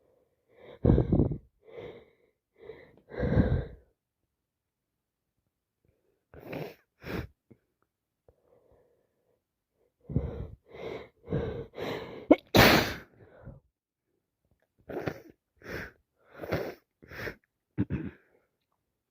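A woman sneezing again and again from allergies on top of a cold. The sneezes come in quick runs of short bursts with short pauses between, and the loudest, sharpest one falls about two-thirds of the way through.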